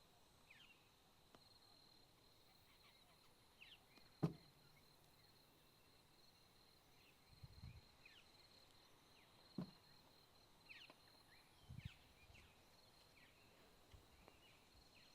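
Near silence with faint short falling bird chirps and a steady high-pitched whine, broken by one sharp click about four seconds in, a softer click near ten seconds, and two soft low thuds.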